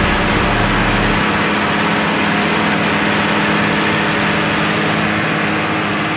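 New Holland 8160 Turbo tractor's six-cylinder turbo diesel running steadily under load while pulling a plough.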